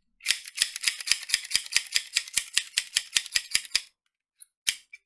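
Small plastic mini M1911 toy pistol clicking rapidly as its mechanism is worked by hand, an even run of sharp clicks about six a second, then a pause and a few single clicks near the end.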